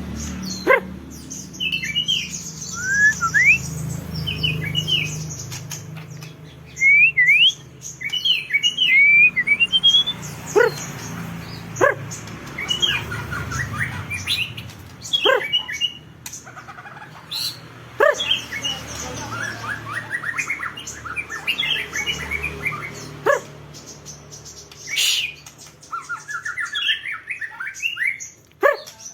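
Songbird singing a varied run of chirps, quick rising whistles and fast trills, broken now and then by a few sharp clicks, over a steady low hum.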